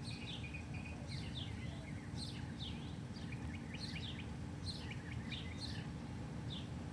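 Small birds chirping repeatedly: quick clusters of short, high, downward-sliding notes, over a steady low rumble.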